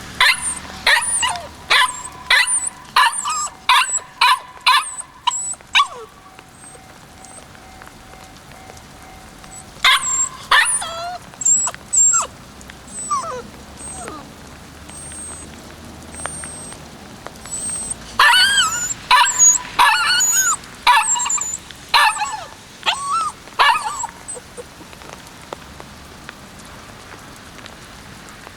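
Kishu Ken puppy, about eight weeks old, giving three bouts of rapid, high-pitched yips and barks, with thin whines between the bouts.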